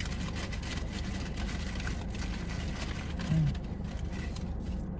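Steady low rumble inside a car's cabin, with close, crackly chewing and crunching of fries.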